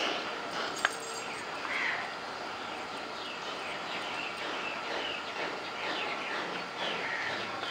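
Small birds chirping over and over in the background, short high calls through the whole stretch, with one sharp click a little under a second in.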